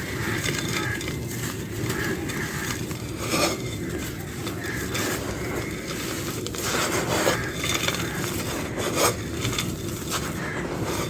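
Dry clay being crumbled and crushed by hand: continuous gritty crackling with several louder crunches about a third of the way in, two thirds in and near the end.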